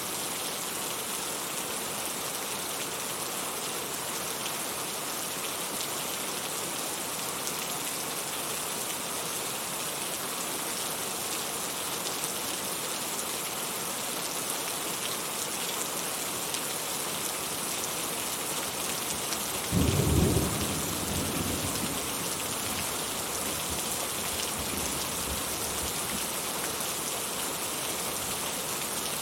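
Heavy rain falling steadily with an even hiss. About two-thirds of the way through, a single clap of thunder breaks in suddenly and rumbles away over a few seconds.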